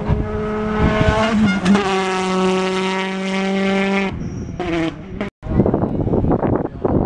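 Rally car engine held at high revs with a steady note that steps up in pitch once. About four seconds in the sound breaks off at an edit, drops out briefly, and turns into a rough, noisy engine and tyre sound from another rally car.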